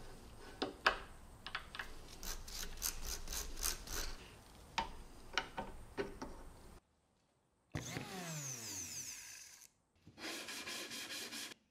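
Small clicks and scrapes of metal gears and a cast gearbox cover being fitted onto a stripped kitchen mixer motor. After a sudden cut, a whir falls in pitch for about two seconds, then a sanding block scrubs a plywood board in rapid strokes near the end.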